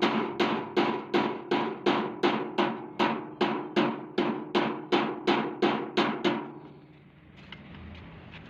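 A hammer striking metal in quick, even blows, about four a second, each with a brief ring, stopping a little after six seconds in.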